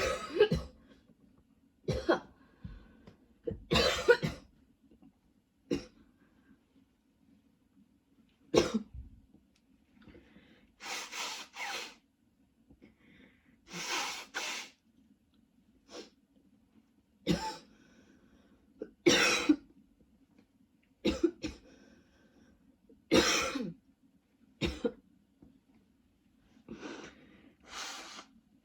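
A woman coughing over and over in short separate coughs and small clusters, one every second or two, from a persistent tickle in her throat.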